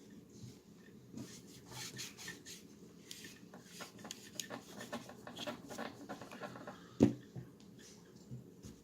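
Parts of a Polymer80-built Glock pistol being worked by hand: a run of small metal scrapes and clicks, with one sharper knock about seven seconds in.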